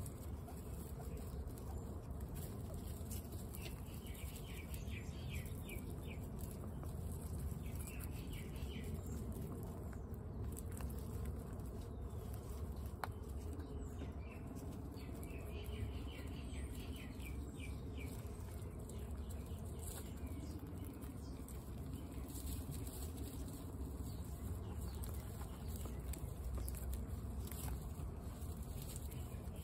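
Guinea pigs crunching hard pellets from steel bowls, a fast, irregular chewing that comes in bursts of rapid crunches.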